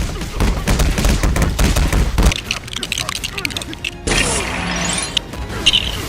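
Rapid barrage of impact sound effects, like a burst of gunfire, for about two seconds. It thins out, and about four seconds in a brighter sound effect comes in with a rising sweep.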